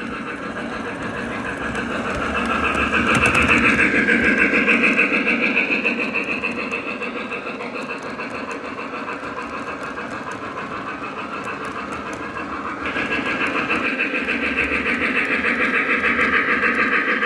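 Model train running along the track: a model C&O 2-8-2 steam locomotive and coal hopper cars. The wheel and motor noise is steady, with a fast rhythmic clicking. It grows louder a few seconds in, eases off, then jumps louder again near the end as the locomotive comes by.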